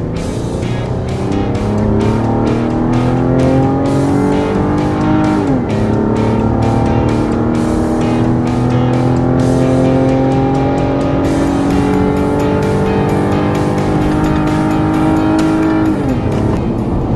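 Ram 1500's 3.6-litre Pentastar V6 accelerating hard while towing a trailer: the engine note climbs steadily and drops sharply at two automatic upshifts, about six seconds in and near the end. Music with a steady beat plays over it.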